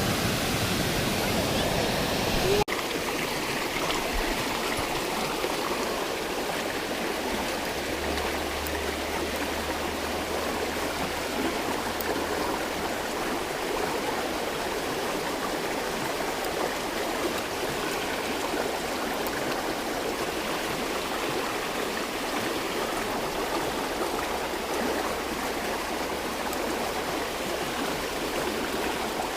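Flowing stream water, a steady, continuous rush.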